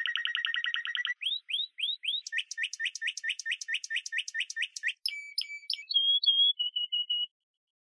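Bird-like chirping tones: a fast buzzy trill, then a run of rising chirps about three a second, then a few short steady and falling whistles, stopping abruptly near the end.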